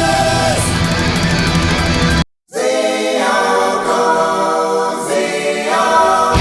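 Background music with singing; the track cuts to silence for a moment a little after two seconds in, then carries on without its bass until near the end.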